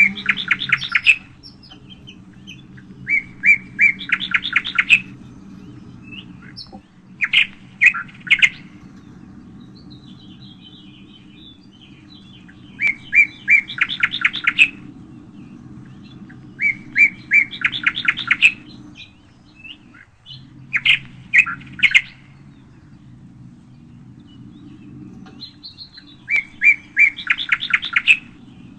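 A songbird singing a short phrase over and over, about every three to four seconds: a few clear notes, then a fast trill. A steady low hum runs underneath.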